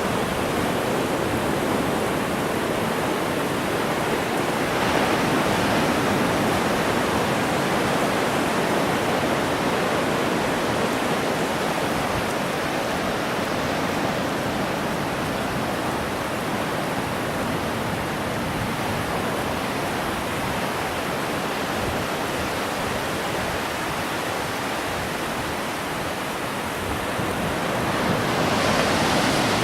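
Ocean surf washing on a beach, a steady rush that swells louder about five seconds in and again near the end as waves break.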